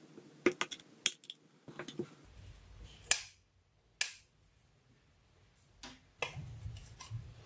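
About ten scattered sharp clicks and taps, the loudest about three seconds in, from plastic pry picks working at the seam of an HTC One M9's aluminium body and tools being set down on a wooden table, with low handling rumble in the later part as the housing is being pried apart.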